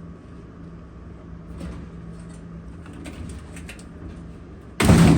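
Sheet-metal front panel of a dryer being pulled off the cabinet: a few faint handling clicks, then one loud, short scraping clatter near the end as it comes free, over a faint steady hum.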